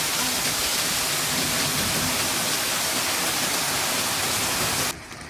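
Steady rushing noise of floodwater pouring through an overflowing ravine, cutting off abruptly near the end.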